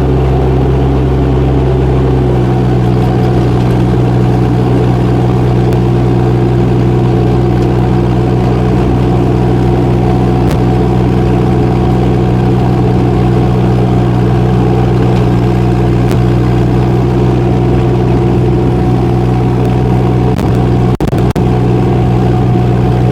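Kubota D902 three-cylinder diesel of a 2-ton mini excavator running steadily at raised throttle while the machine travels on double speed, swings and moves its arm all at once. The engine note holds even, with two brief dips near the end.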